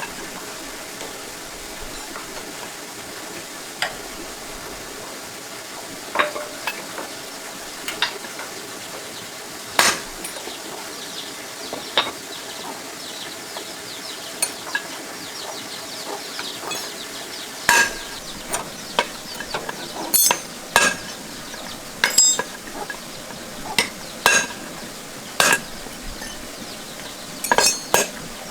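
Metal tools and parts clinking and tapping against each other as they are handled during tractor repair work. A few sharp clinks come in the first half, then they come thicker and louder in the second half, over a steady hiss.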